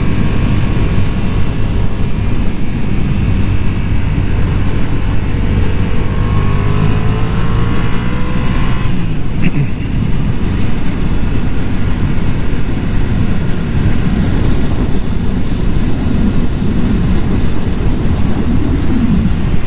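Motorcycle engine running at road speed under heavy wind rush on the microphone. Its note climbs steadily for a few seconds after the middle, then breaks off with a short click about nine seconds in, and the bike runs on at a steady cruise.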